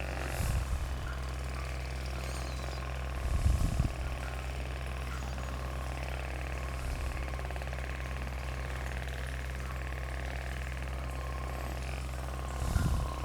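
A steady low mechanical hum, with three short, louder low thuds: about half a second in, around four seconds in, and near the end.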